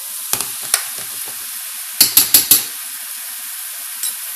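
A sauce of bacon and duck fat with garlic and preserves sizzling steadily in a hot skillet while a spoon stirs it. The spoon clicks against the pan a few times, with a quick run of four sharp knocks about two seconds in.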